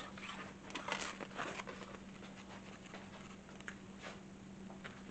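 Faint soft clicks and rustles close to the microphone, busiest in the first two seconds, over a steady low hum.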